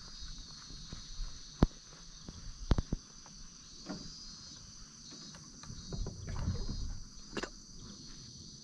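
Steady high-pitched insect buzzing, with a few sharp knocks on a small rowboat, the loudest about a second and a half in and near the three-second mark, and a low rustle about six seconds in.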